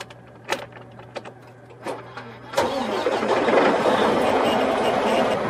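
A few light clicks of an ignition key going into and turning in the lock of a Freightliner semi truck, over a faint steady hum. About halfway through, the diesel engine starts with a sudden jump in loudness and keeps running.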